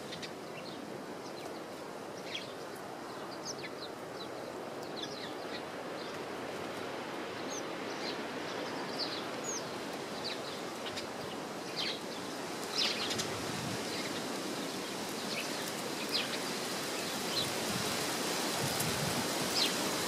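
Steady wind noise rushing through the garden, with frequent short, high chirps and calls from small birds scattered over it.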